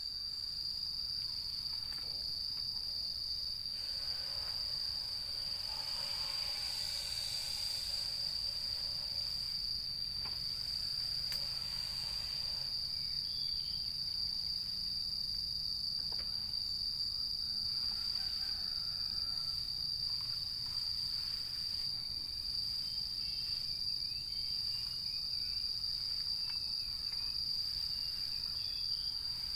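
Insects trilling outdoors in one steady, unbroken high-pitched tone.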